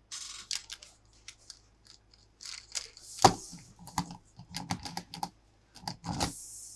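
Plastic toy pieces and packaging being handled: a run of irregular clicks, taps and short rustles, with one sharp knock about three seconds in.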